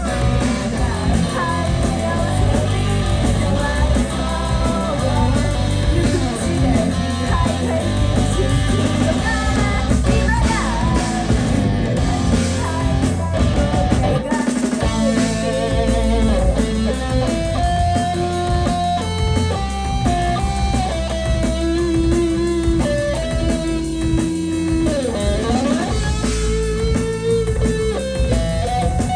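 Live rock band playing: electric guitar, bass and drum kit, with some singing. From about halfway through, a lead guitar plays long held notes, some bent or sliding in pitch.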